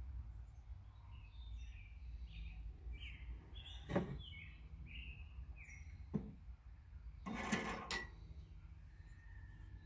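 Small birds chirping in a series of short notes. A sharp click about four seconds in, another about six seconds in, and a quick cluster of clicks near the end.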